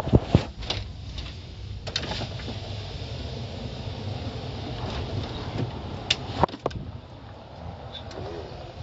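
Steady low engine and road hum heard from inside a moving car, with a few sharp knocks, the loudest just after the start and around six seconds in.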